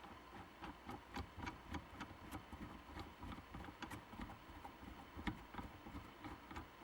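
Faint, irregular small clicks and scrapes as a freshly threaded, lathe-turned knurled knob is screwed onto the soldering fixture's thread by hand. The threads are tight on this first time in.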